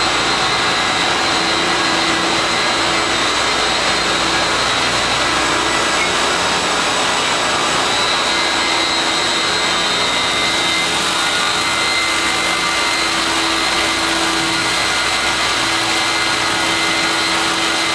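A 250-horsepower Mattison 400S surface grinder running steadily, its wheel grinding 4140 steel plates: an even rush of noise with faint steady hums and whines in it.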